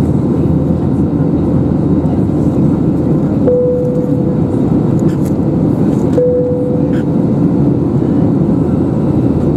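Steady engine and airflow noise inside the cabin of an Airbus A320neo in flight. Two short chimes sound about three seconds apart.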